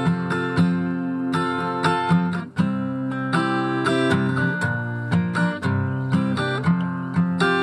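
Acoustic guitar music, chords strummed in a steady rhythm.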